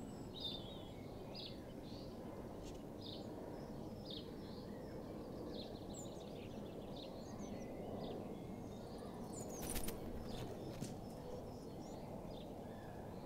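Small birds chirping with short, scattered calls over steady low background noise. A few brief clicks come about ten seconds in.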